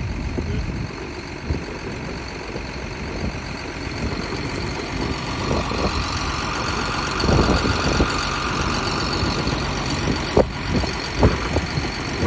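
Diesel engines of a John Deere 6620 combine and a John Deere 4955 tractor running steadily at idle, with a couple of short knocks near the end.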